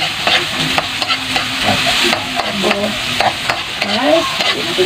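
Garlic, ginger and onion sizzling in hot oil in a metal wok while a metal spoon stirs them, scraping and clicking against the pan over and over.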